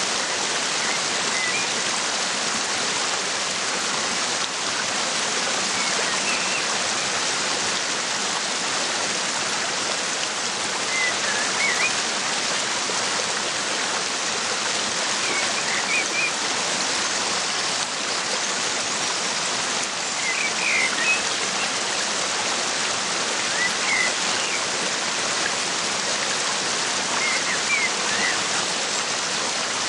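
Steady rushing of a waterfall. Short bird chirps come through it every few seconds.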